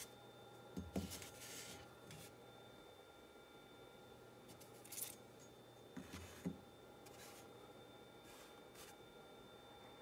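Near silence with a faint steady hum, broken by a few soft clicks and rubs as a steel ruler is handled and laid on the milled foam: about a second in, around five seconds, and twice just after six seconds.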